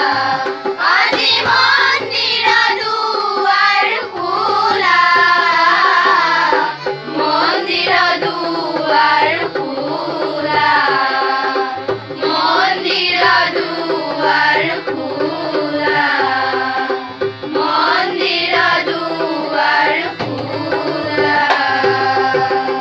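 Mixed chorus of girls and boys singing a song together, with drum accompaniment and a steady held note underneath.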